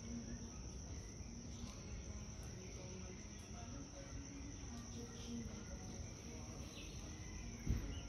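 Insects, crickets or similar, giving a steady high-pitched drone over faint outdoor background noise, with one low thump near the end.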